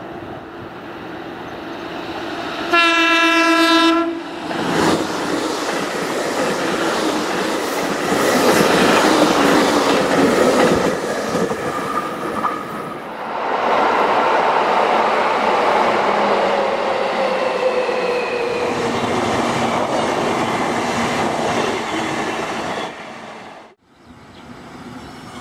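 A JR Kyushu 813 series electric train sounds its horn once, for about a second, around three seconds in as it approaches. Loud train running noise follows, changing abruptly about four and thirteen seconds in, with a slowly falling whine in the later part, and fades out near the end.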